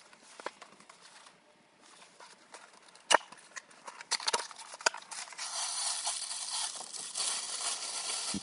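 Plastic toy packaging being handled and opened: a few sharp clicks, then continuous rustling and crinkling from about five seconds in.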